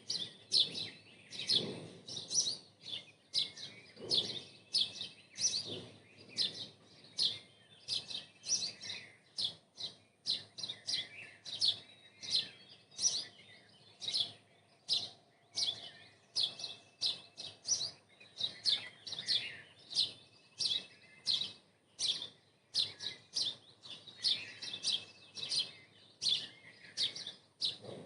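Songbirds chirping in trees: a steady run of short, high chirps, about two a second, with some lower notes overlapping.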